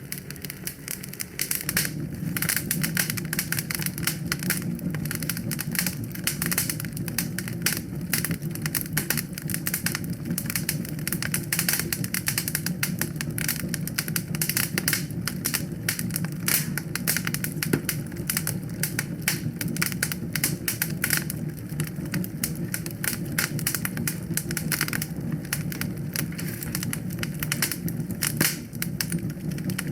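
Wood fire crackling in a fireplace: dense, irregular pops and snaps over a steady low rush of flames, coming in about a second in after a brief lull.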